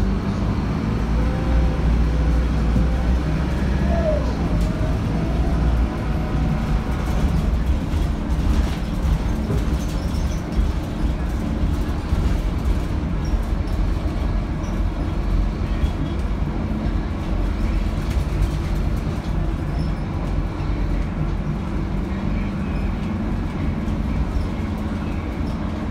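Interior ride noise of a Scania K280UB bus under way: the rear-mounted engine and drivetrain running with a steady low rumble, a faint whine rising briefly about four seconds in.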